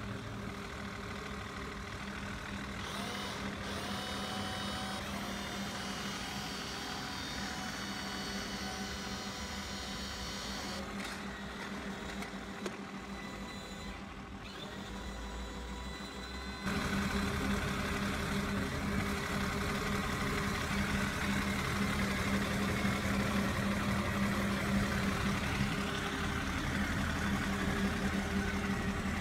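Radio-controlled model cable shovel crawler crane running, a steady mechanical hum of its motors with a few faint rising and falling whines in the first few seconds. About two-thirds of the way through the sound jumps suddenly louder and carries on steadily.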